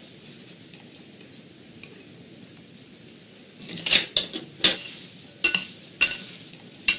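Salad utensils clinking against a large ceramic mixing bowl as a salad is tossed: several sharp, ringing clinks starting about halfway through, after a few quiet seconds.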